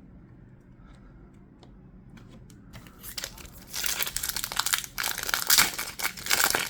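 A Pokémon booster pack's foil wrapper crinkling and crackling as it is handled and torn open, starting faintly with a few small clicks and turning loud about three seconds in.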